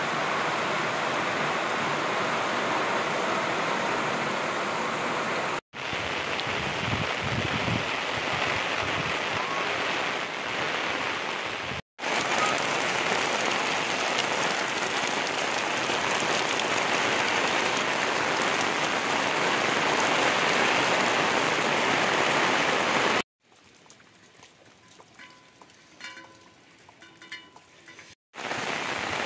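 Heavy rain falling on leaves and ground, a steady hiss. Near the end it gives way for about five seconds to a much quieter stretch, then resumes.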